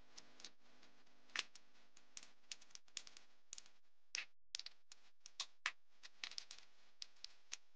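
Scattered sharp clicks and light taps at uneven intervals, from hand work with tools and parts in a car's engine bay.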